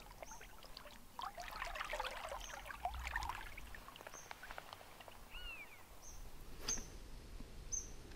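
Shallow river water splashing and swirling around a hand as a chub is let go, for the first few seconds. Then small birds calling with short high chirps every second or so, and one brief arched call in the middle.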